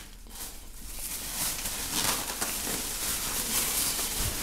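Rustling, scraping handling noise as the recording phone is carried and jostled, with a couple of soft low thumps near the end.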